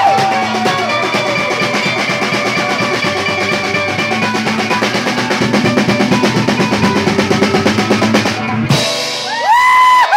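Live band with a drum kit playing fast, even strokes in a rising drum roll. Near the end the music stops abruptly and the crowd cheers, with a high whistle.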